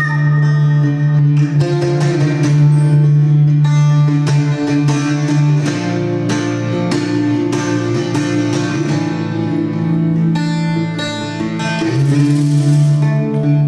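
Meditative live music: a long-necked lute plucked in quick runs over a steady low drone.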